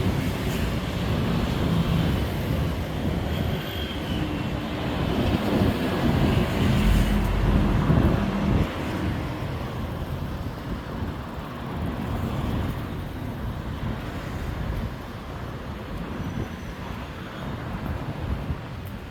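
Street traffic: a steady rumble of passing vehicles, with one engine swelling louder as it passes close, loudest about seven to eight seconds in, then easing off.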